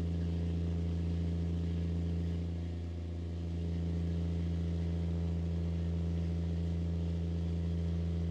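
Fishing boat's engine running steadily: a low, even hum that dips slightly in loudness about three seconds in.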